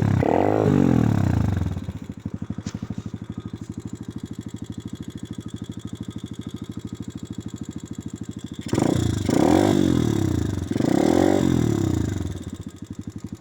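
Apollo RFZ 125 pit bike's single-cylinder four-stroke engine revving, then settling to a steady pulsing idle about two seconds in. Near the end it is blipped up twice and falls back to idle.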